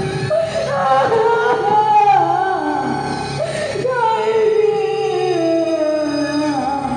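A song from an Odia stage opera, sung with instrumental backing and amplified over a PA loudspeaker, the voice holding long notes that glide down.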